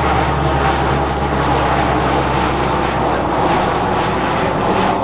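Lockheed C-130 Hercules four-engine turboprop passing low overhead, its engines and propellers giving a steady low drone.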